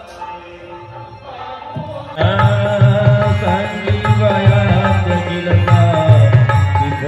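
Music with a steady drum beat, soft at first, then coming in loud and full about two seconds in.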